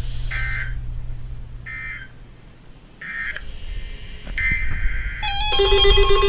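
Weather radio sending the buzzy digital data bursts of an EAS/SAME alert header, four short bursts in a row about a second and a half apart. Near the end a steady, piercing alert tone made of several fixed pitches starts and holds.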